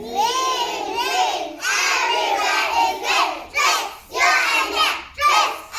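A group of six-year-old children reciting together in unison, a chanted, sing-song choral speaking delivery in short phrases with brief pauses.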